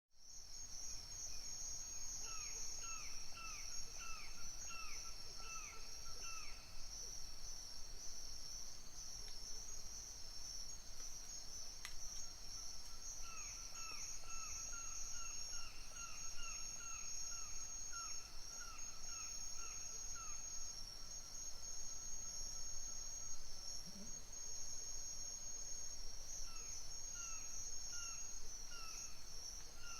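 Night chorus of crickets: a steady, dense, high-pitched trilling. Over it a lower, short, falling chirp repeats about twice a second, in three bouts that stop and start again.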